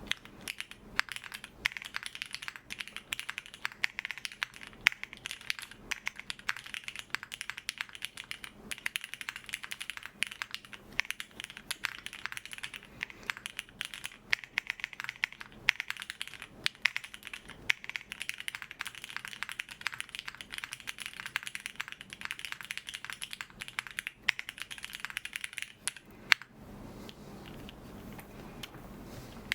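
Fast typing on a Swagkeys Transition TKL mechanical keyboard with lubed Cherry MX Black linear switches, a polypropylene plate and GMK keycaps: a dense, clacky patter of keystrokes with occasional louder strikes. The typing stops about 26 seconds in.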